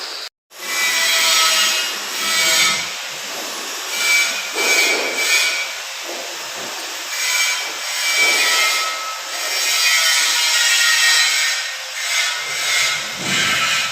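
Repeated rasping strokes of a hand tool rubbed back and forth on a hard surface, roughly one a second. The sound cuts out briefly just after the start.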